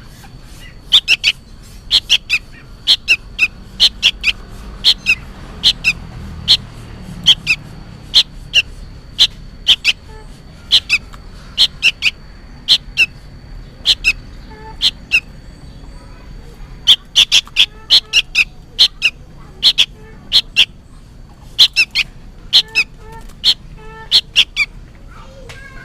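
Juvenile sooty-headed bulbul (kutilang) calling noisily: repeated short, sharp chirps, often in quick pairs or runs, with a pause of about two seconds midway. The calling is, in the uploader's uncertain guess, a young bird calling for its parent.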